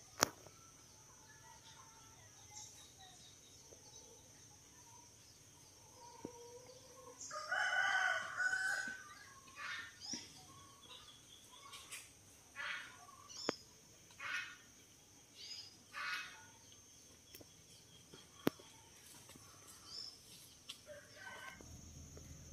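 A rooster crowing once, about seven seconds in, followed by a string of shorter bird calls, over a steady high-pitched hiss.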